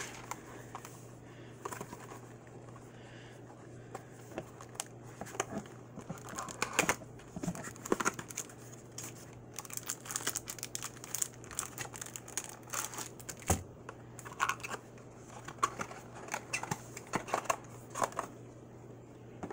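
Hands opening a baseball card hanger box: the cardboard box tearing open and the wrapper around the stack of cards crinkling, in scattered crackles and sharp clicks that die down near the end.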